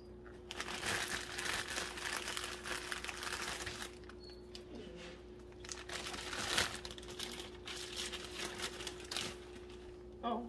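Plastic packaging crinkling as it is handled, in two spells of a few seconds each, over a faint steady hum.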